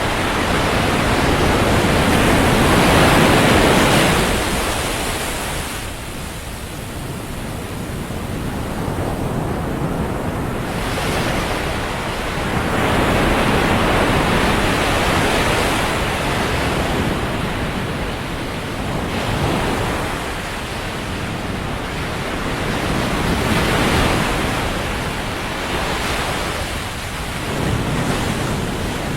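Ocean surf on a beach: waves breaking and washing in, swelling and fading every several seconds, over a steady wash, with some wind on the microphone.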